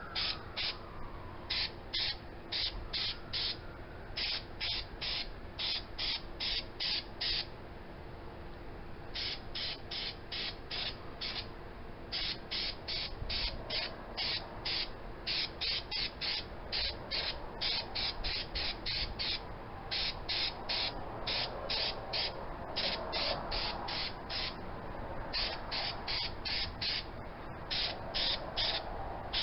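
Repeated short, high chirping calls from an animal, about four to five a second, in long runs broken by brief pauses. A siren fades away in the first second.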